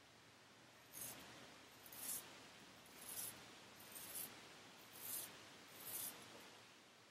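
Frederick Reynolds 7/8 heavy wedge straight razor scraping through lathered stubble on the cheek: six short strokes about a second apart, starting about a second in.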